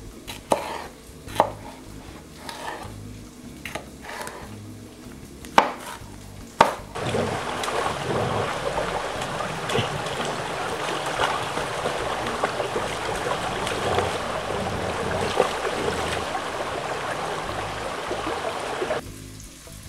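Chef's knife cutting red bell pepper on a plastic cutting board: several sharp, separate strokes. About seven seconds in a steady hiss takes over and stops suddenly near the end.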